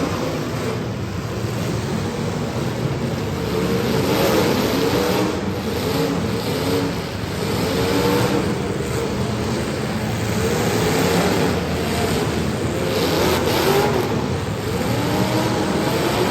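Demolition derby car engines revving hard, their pitch repeatedly rising and falling as the cars accelerate and back off over a loud, steady din.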